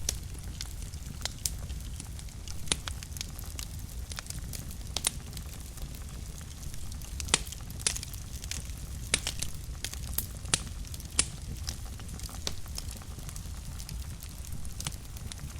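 Wood fire burning in a fireplace: a steady low rumble of the flames with sharp, irregular crackles and pops from the burning logs, a few each second.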